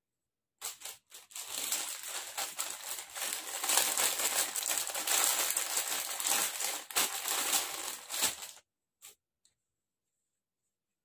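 Packaging wrapper crinkling and rustling as it is handled and opened to take out a new boxer brief. The crackling starts about half a second in, goes on for about eight seconds, stops suddenly, and is followed by a couple of short faint crackles.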